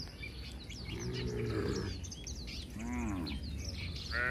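Cattle mooing: a low, drawn-out moo about a second in, then a shorter call that rises and falls in pitch about three seconds in. Small birds chirp throughout.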